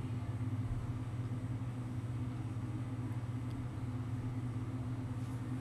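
A steady low machine hum that holds one pitch and does not change.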